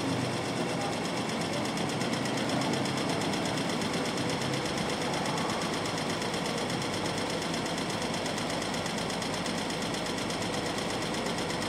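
Dense, steady electronic sound texture with a fast buzzing pulse, made from processed field recordings of city sounds; it sounds machine-like.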